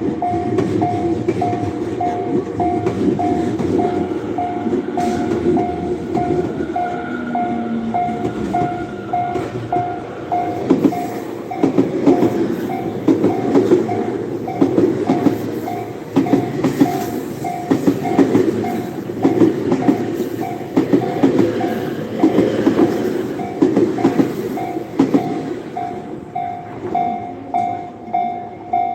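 Japanese railroad crossing alarm ringing in a steady repeating electronic ding while an electric commuter train runs past, its wheels clattering rhythmically over the rail joints. Near the end the train noise dies away and only the crossing bell keeps ringing.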